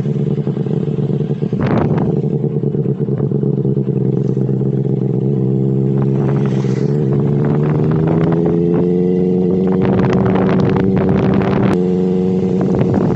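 Benelli 600 motorcycle's inline-four engine running under way, its exhaust note steady at first and then rising gradually as the bike gathers speed, with a brief break near the end.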